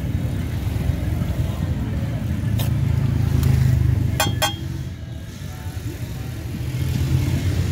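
Low rumble of street traffic that rises and falls, with a few sharp metallic clicks near the middle as a metal ladle knocks against the aluminium pan.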